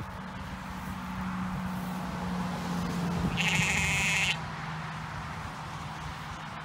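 A sheep bleats once, a quavering call of just under a second about three and a half seconds in, over a steady low hum.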